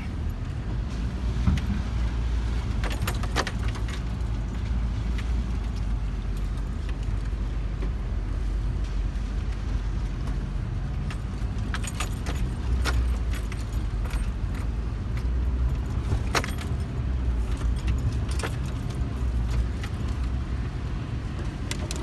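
Vehicle creeping over a rough dirt forest track, heard from inside the cabin: a steady low engine and road rumble with scattered rattles and jingles as it jolts over the bumps.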